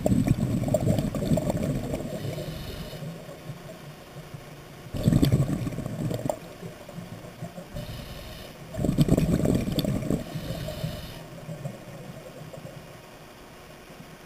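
Scuba diver breathing through a regulator underwater: three surges of exhaled bubbles rumbling and gurgling, about every four to five seconds, with a fainter hiss between them.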